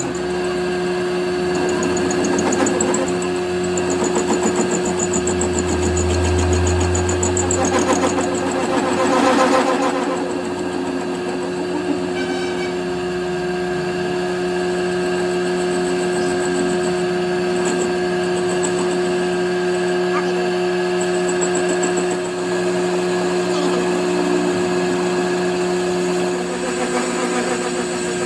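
Metal lathe running with an engine crankshaft spinning in its chuck: a steady machine hum with constant tones, and a brief rise in noise about nine seconds in.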